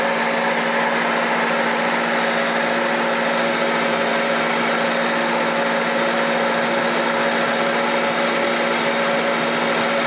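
Front wheel and CV driveshaft of a Holden Barina with its 1.6-litre engine running in gear on a hoist, making a steady mechanical whirring hum with a few constant tones. The CV joint is right out of balance and wobbling as it spins.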